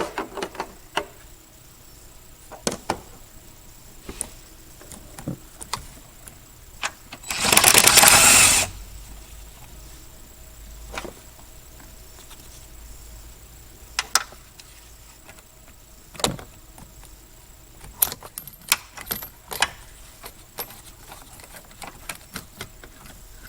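Hand tools and metal parts clicking and clinking while the 10 mm bolts on the ECU brackets are undone. About eight seconds in comes one loud rasping burst lasting about a second.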